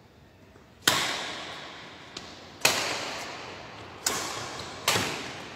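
Badminton rackets striking a shuttlecock during a rally, four sharp hits with the last two close together, each echoing through a large hall.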